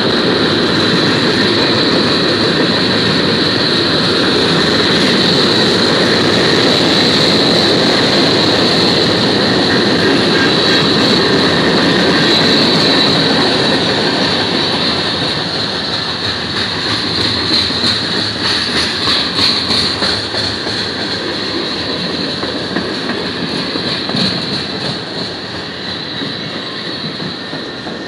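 Freight train cars, covered hoppers and then tank cars, rolling past: a steady rumble and clatter of steel wheels on the rails, with a steady high-pitched ring over it. The sound eases a little about halfway through, and a run of sharp clicks follows.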